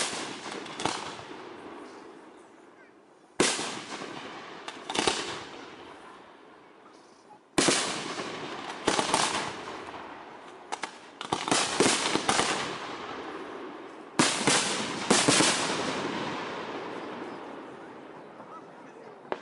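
Aerial firework shells bursting: five loud bangs about three to four seconds apart, each followed by a cluster of smaller cracks and a long rolling echo that slowly fades.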